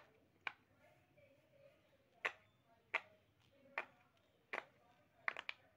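Bubbles of a silicone pop-it fidget toy being pressed in by a finger, each giving a short sharp pop. About nine pops at uneven intervals, with a quick run of three near the end.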